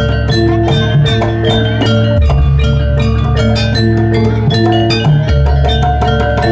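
Jaranan dance accompaniment music: mallet-struck metallophone notes and steady drum strokes over long, held bass notes.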